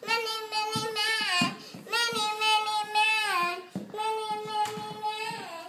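A young child's voice holding a long high note three times, each note steady and then sliding down in pitch at its end, in a sing-song way.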